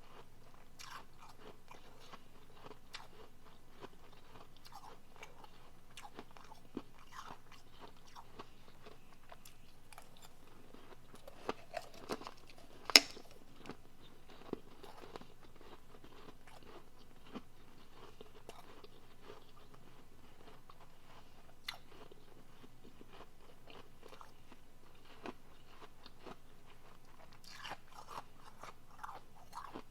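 Close-miked biting and chewing of soft refrozen powdery blender ice: many small crunches throughout, with one much louder, sharp crack about halfway through.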